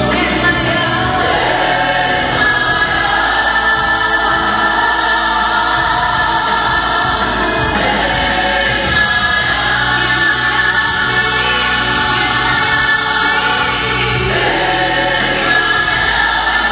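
A South African gospel vocal group of mixed male and female voices singing in harmony through microphones.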